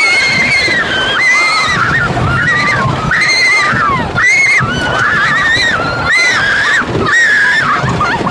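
Roller-coaster riders screaming, one high held scream after another with short breaks, over a steady low rumble of the wooden coaster train running on its track.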